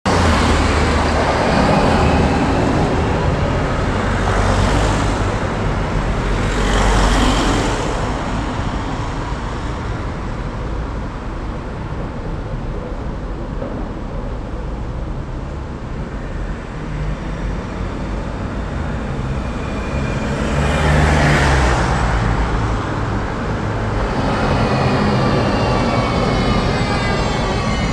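City street traffic noise, with vehicles passing loudest about 4, 7 and 21 seconds in. Near the end a high, wavering squeal sets in over the traffic.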